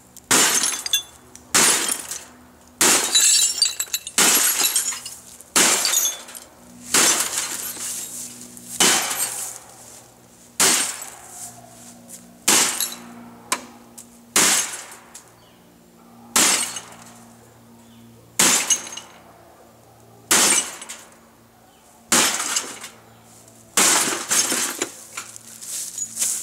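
An old CRT television being smashed: about eighteen heavy blows, one every second or two, each a sharp crash followed by crunching and tinkling of breaking glass and plastic.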